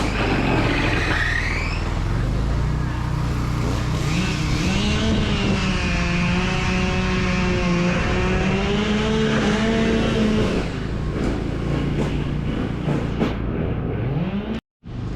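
Small stump grinder's gasoline engine running hard as it grinds out a stump, its pitch sagging and recovering as it takes the load. The sound cuts off abruptly near the end.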